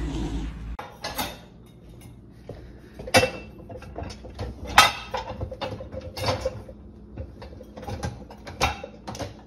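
Dishes and the wire rack of an open dishwasher rattling and clinking as a cat climbs around in the rack, in a string of sharp clatters and knocks.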